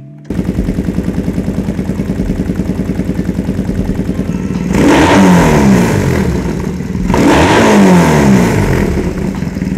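2011 Triumph Thruxton 900's fuel-injected 865 cc parallel-twin engine idling at about 1,160 rpm with an even, pulsing beat, then blipped twice, each rev falling back to idle.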